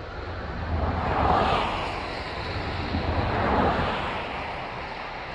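Water rushing from a dam's release outlet, a steady noisy roar with a low rumble that swells twice, mixed with wind on the microphone.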